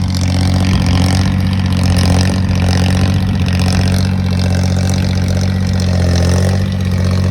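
Tractor engine running steadily, loud and low.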